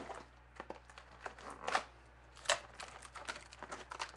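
Cardboard box of trading cards being opened and handled: irregular crinkling and sharp taps of cardboard, the loudest two coming a little under two seconds in and about two and a half seconds in.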